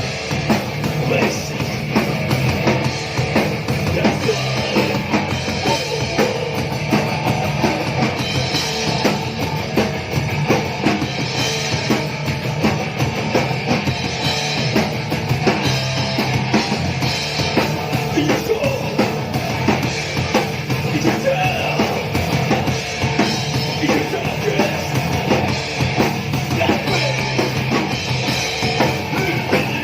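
Live crust punk band playing loudly, with fast, dense drumming driving the music throughout.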